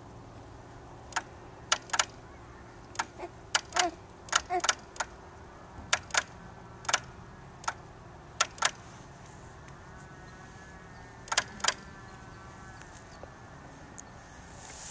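Sharp, short clicks at irregular intervals, many coming in close pairs, over a faint steady low hum.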